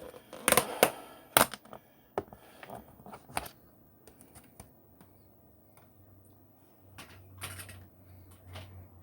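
Crisp clicks and crackles of crunchy fried cucumber chips being chewed with a mouthful of salad, loudest in the first second or two and then sparser and fainter.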